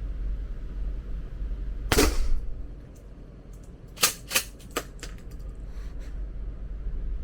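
Gunshots: one loud shot about two seconds in, then three quicker, sharper cracks close together around four seconds in.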